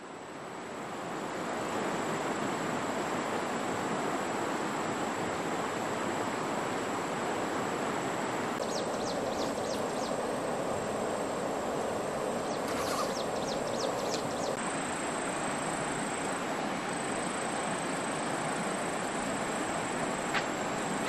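Steady rush of a flowing stream, with a thin, high, steady whine above it. Two short runs of light ticks come near the middle.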